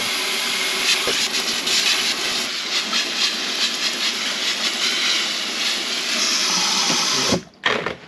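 Kitchen faucet running in spray mode, water hissing through a mesh air-conditioner filter and splashing into a stainless steel sink. It stops abruptly near the end.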